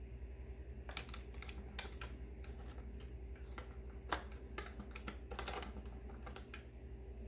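Irregular light clicks and taps of small hard parts being handled, the miniature FPV camera and packaging of a tiny RC car, over a steady low hum.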